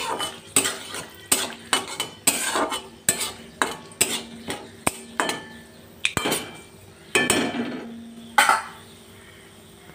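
Metal spatula scraping and knocking against an aluminium kadai while stirring bay leaves and whole garam masala in hot oil, with the oil sizzling. The strokes come quick and irregular and die away near the end.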